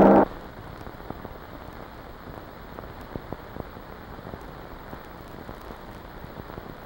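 A sustained music chord cuts off suddenly a quarter second in, leaving a steady low hiss with scattered faint clicks and crackles.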